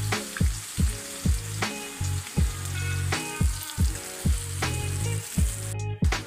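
Battered bitter gourd pieces sizzling as they fry in hot oil, a steady hiss, under background music with a steady beat of about two and a half strokes a second.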